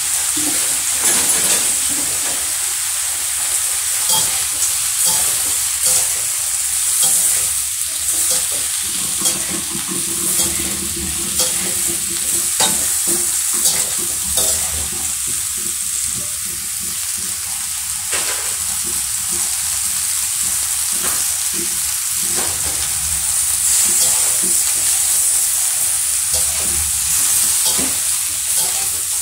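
Chopped baby sawi greens sizzling as they are stir-fried and wilted in a wok, with a slotted metal spatula scraping and tapping the pan now and then.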